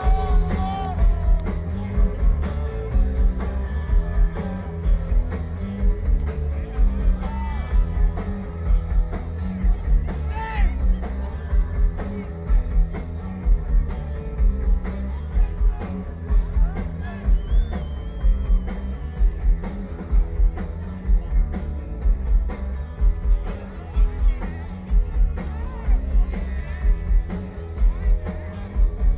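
Live rock band playing through a concert PA: a steady, heavy beat of kick drum and bass guitar under electric guitars, with singing, heard from the audience.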